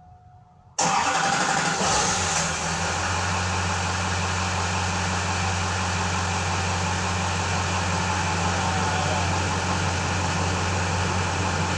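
A 2002 GMC Sierra 2500HD's Duramax 6.6-litre V8 turbo-diesel starts up suddenly about a second in, runs a little louder for a moment, then settles into a steady idle. It is running again after its fuel primer seals were replaced to cure a crank-but-no-restart fault.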